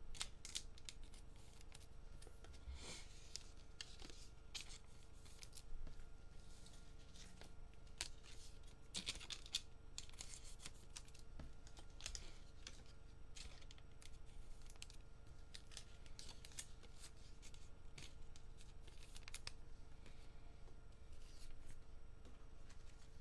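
Baseball trading cards being handled on a tabletop: many short rustles, slides and taps as cards are gathered and stacked, over a steady low hum.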